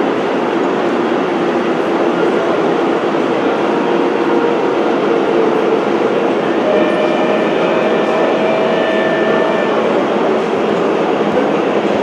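Gauge 1 model train running along the track: a steady rolling noise of wheels and drive, with a few faint held tones over it in the second half.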